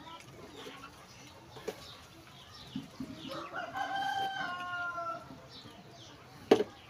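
A rooster crowing once, one drawn-out call of about two seconds in the middle. Near the end, a single sharp clink of steel tableware is the loudest sound.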